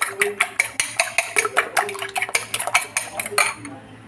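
Metal fork beating eggs in a glass bowl, the tines clicking against the glass about five times a second, stopping about three and a half seconds in.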